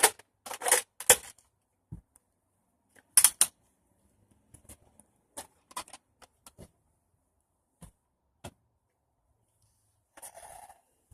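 Plastic clicks and clacks of a Nerf blaster and its magazine being handled during a reload. A cluster of sharp clacks comes in the first second or so, then a louder double clack, then scattered light ticks and a short rustle near the end.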